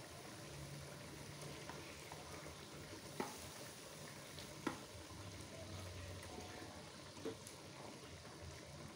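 Thin yellow spiced sauce sizzling and bubbling faintly in a wok, with three short sharp sounds as raw prawns are dropped in, about three, four and a half and seven seconds in.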